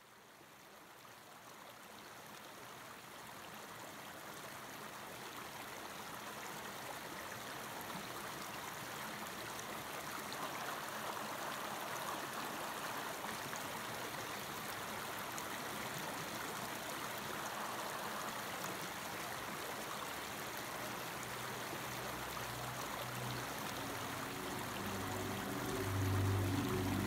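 Mountain stream rushing over rocks, a steady wash of water that fades in from silence over the first few seconds. Low sustained music tones come in near the end.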